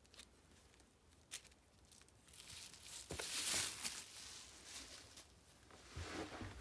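Plastic bubble wrap rustling and crinkling loudly for about two seconds as it is pulled away, followed by a softer rustle with a couple of low knocks near the end.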